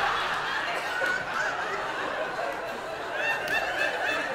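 Theatre audience laughing after a punchline, the laughter dying away into scattered chuckles.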